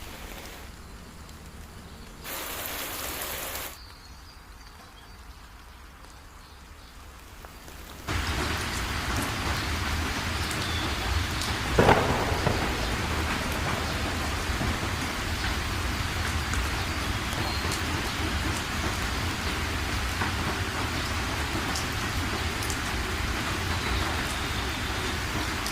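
Heavy rain pouring steadily, setting in loud about eight seconds in after a quieter stretch, with one sharp crack of thunder about four seconds later.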